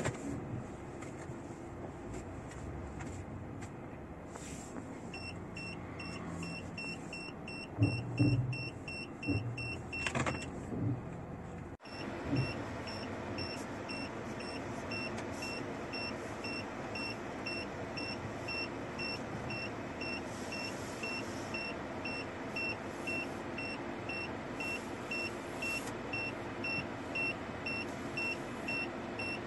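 A warning beeper in a vehicle cabin sounds regular short beeps: about four a second at first, then about two a second after a cut, over the steady low running of the vehicle. A few louder knocks come around eight to ten seconds in.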